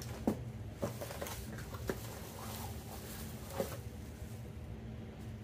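Packaging handled as parts are lifted out of a box: plastic wrap crinkling and cardboard tapping in a few short, soft bursts over a faint steady low hum.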